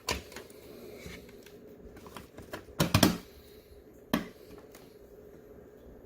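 Plastic parts of a power strip being handled and fitted back together: a knock at the start, a short clatter of clicks about three seconds in, and a single sharp click about a second later.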